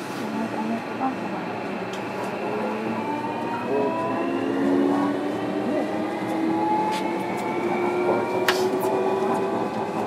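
Interior running sound of a JR Kyushu 305 series electric multiple unit: the VVVF inverter and permanent-magnet synchronous traction motors give a whine of several tones that climbs slowly in pitch as the train accelerates, over a steady running rumble. Two sharp clicks come near the end.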